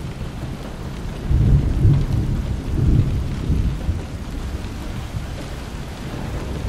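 Thunderstorm: low rolling thunder over steady rain. The rumble swells between about one and a half and three and a half seconds in, then eases back.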